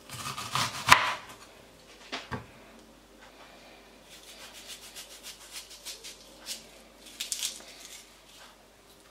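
A kitchen knife slicing through an onion onto a wooden cutting board, with a couple of sharp knocks of the blade on the board in the first two seconds or so. Then soft rubbing and crackling as onion slices are pulled apart into rings by hand.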